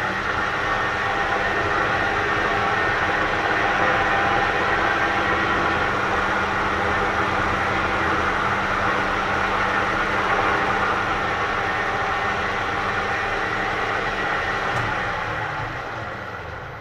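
Metal lathe running, its cutting tool taking a pass along a shaft built up with silicon bronze braze to bring it to size: a steady cutting hiss over the hum of the motor and gearing. The sound dies away near the end as the lathe winds down.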